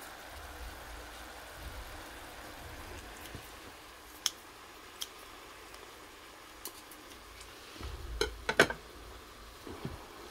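Marinated pork ribs simmering in a wok make a faint, steady hiss. A few separate sharp clicks sound, then a quick cluster of sharp knocks and clatter comes about eight seconds in.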